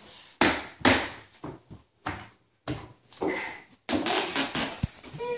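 A run of irregular knocks and bumps. From about four seconds in, a toy activity table's electronic music starts and keeps playing.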